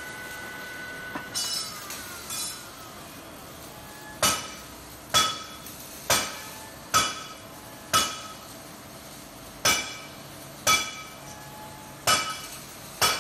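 A vertical slotting machine's steady whine stops about a second in and winds down. A couple of light metal clinks follow, then from about four seconds in come sharp metal-on-metal blows, roughly one a second, each leaving the heavy steel plate and clamp ringing.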